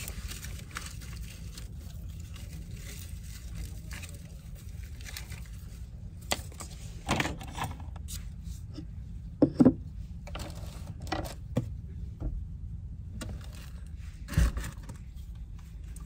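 Food being prepared by hand on a wooden cutting board: scattered clicks, scrapes and knocks from a knife, a fork and packaging as an avocado is cut. The loudest is a sharp double knock about halfway through. A steady low rumble runs underneath.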